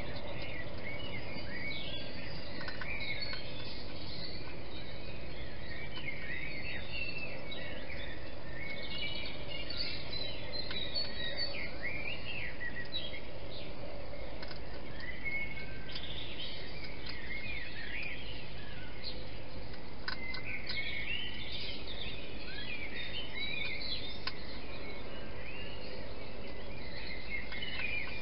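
Several birds singing in the pre-dawn chorus, many short chirping phrases overlapping throughout, over a steady background hiss with a few faint clicks.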